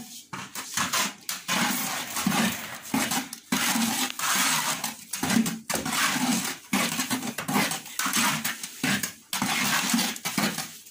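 Bare hand working a wet white plaster-like mix in a plastic bucket: squelching and scraping in repeated strokes, about two a second.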